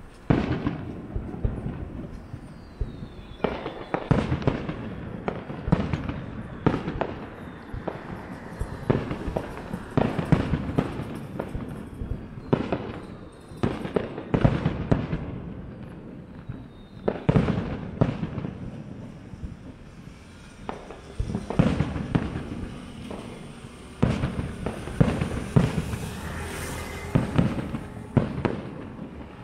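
Aerial firework shells bursting overhead in an irregular, rapid series of booms, often one to two a second. Each boom trails off in an echoing rumble.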